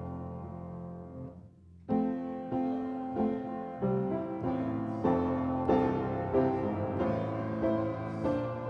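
Piano playing a slow, classical-style piece. A held chord dies away over the first two seconds, then a new phrase begins and the notes go on at a steady pace.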